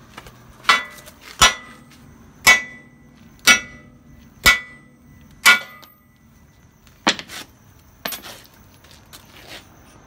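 Hammer striking metal six times, about once a second, each blow ringing briefly, followed by a few lighter knocks.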